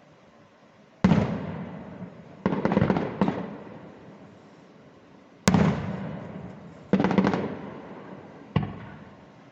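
Aerial firework shells bursting: five sharp bangs a second or more apart, each dying away with a long echo, the second followed by a short crackle.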